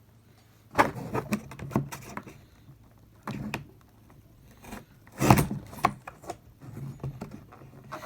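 Knife working one-handed at packaging: irregular scrapes, clicks and knocks with short pauses between them, the loudest knock about five seconds in.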